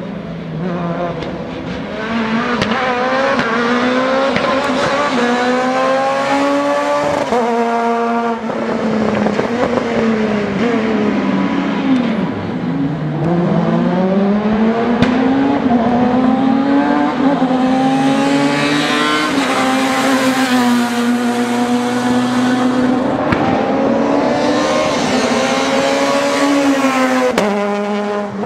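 S2000 rally car engines revving hard. The pitch climbs again and again and drops sharply at each gear change, and falls low once before the engines pull up through the gears again.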